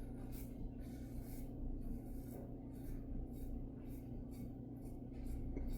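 Antica Barberia Titan safety razor scraping through lathered stubble in short strokes, about two a second, over a steady low hum.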